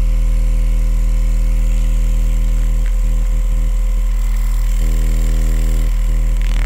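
A 6.5-inch Ground Zero subwoofer in a modified Fiat Punto factory ported box plays a steady 40 Hz sine test tone: a deep, unbroken low hum with overtones. The tone is the first step of a frequency sweep used to find the box's port tuning frequency by watching how far the cone moves. A brief knock comes at the very end.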